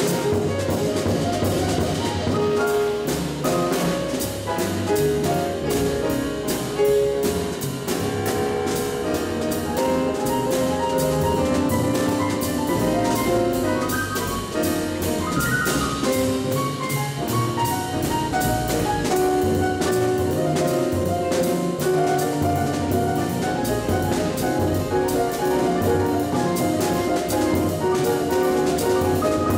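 Live small-group jazz: an acoustic grand piano plays a busy run of single notes and chords over walking double bass, with the drummer keeping a steady beat on the cymbals.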